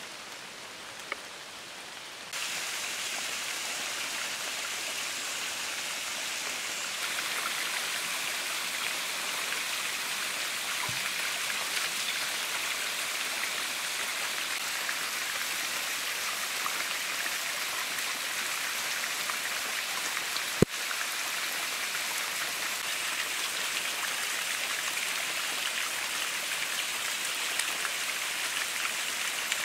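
A small waterfall splashing down a rock face: a steady rushing hiss that starts abruptly about two seconds in, after a softer, rain-like patter. A single sharp click sounds about two-thirds of the way through.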